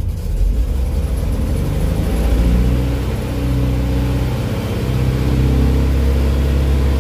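VW Type 2 bus's air-cooled flat-four engine revving up as a hand throttle under the dash is pulled out, then holding steady at a raised speed. The engine speed climbs about two seconds in.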